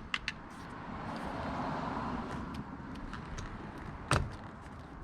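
Outside mirror's plastic electrical connector being worked loose by hand: rustling and small plastic clicks, then one sharp click about four seconds in as it comes free.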